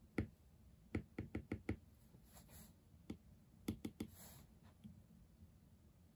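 Stylus tip tapping on an iPad's glass screen, with light, sharp clicks: a quick run of five or six about a second in, then scattered taps and another cluster near four seconds. Two faint brushing hisses come between them.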